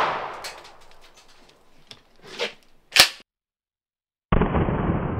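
Echo of a 12-gauge pump-action shotgun slug shot fading out over the first second, then a few faint clicks and one sharp clack about three seconds in. After a moment of dead silence, a muffled boom with a long fading tail starts about four seconds in.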